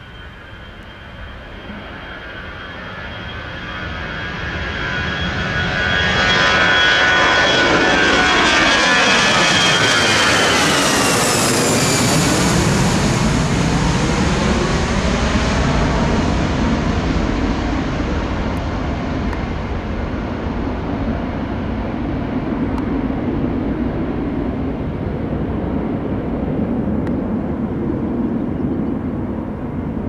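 Airbus A319 jet engines at takeoff power passing by: the sound builds to its loudest, the high engine whine drops in pitch about eleven seconds in as the aircraft goes past, then a loud steady rumble carries on as it moves away.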